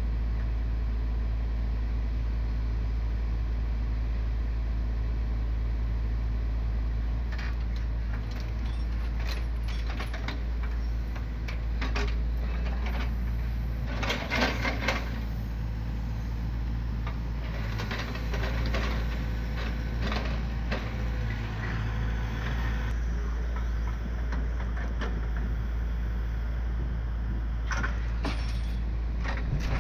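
Hitachi hydraulic excavator's engine running steadily, with a series of knocks and clatters as its log grapple handles the logs, starting about a quarter of the way in and loudest in the middle.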